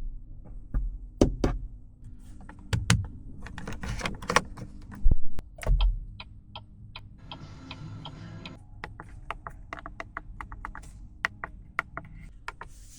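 Handling noises: scattered clicks and taps with several dull thumps, the loudest about five and six seconds in.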